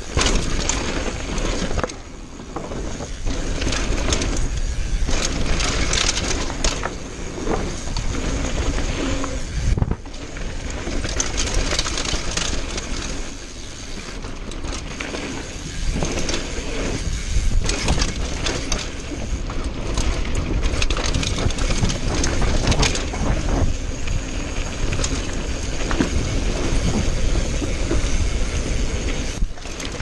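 Mountain bike descending a dirt and rocky trail: tyres running over dirt and loose gravel, with frequent rattles and knocks from the bike over bumps, and wind buffeting the microphone.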